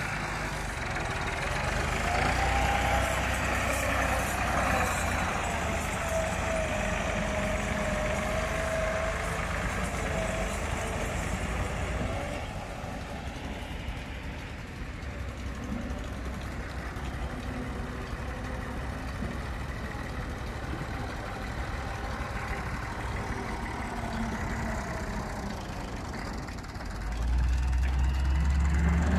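Massey Ferguson 385 tractors' diesel engines running under load as they pull soil-loaded trolleys, a steady low rumble that is louder for the first twelve seconds or so, drops back, then comes up loud and close near the end. A high steady whine runs alongside the engines for several seconds near the start.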